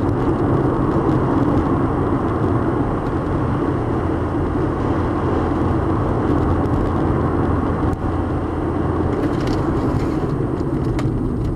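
Car driving at speed through a severe wind storm: a steady rush of wind and road noise over a low engine hum, with a few light ticks in the last few seconds.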